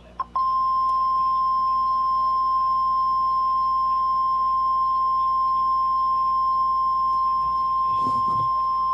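NOAA Weather Radio 1050 Hz warning alarm tone: one loud, steady beep held for about nine seconds, then cut off. It signals that a new warning message follows.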